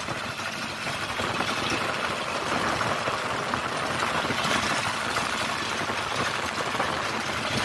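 Kubota RK70 hand tractor's single-cylinder diesel engine running steadily as the machine works through a flooded rice paddy.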